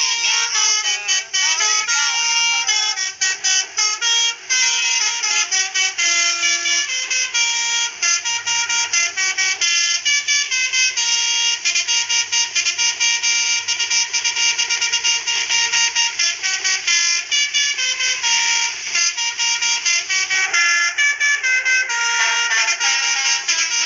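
Basuri telolet horn playing a fast melody of short notes that change pitch every fraction of a second, with no break.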